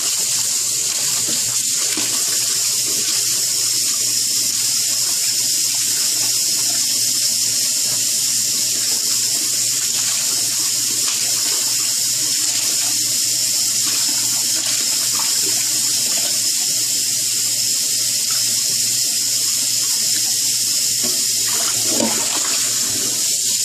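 Tap water running steadily into a pan while blanched crown daisy greens are rinsed in cold water.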